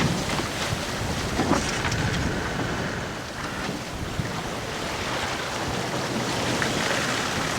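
Wind buffeting the microphone over the steady rush of sea water along a sailboat's hull under sail.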